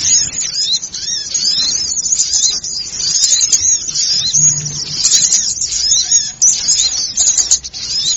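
Dense, noisy chorus of many small songbirds chirping and twittering rapidly, an unbroken tangle of short high-pitched notes and quick up-and-down whistles. It is a lure recording played to draw small birds.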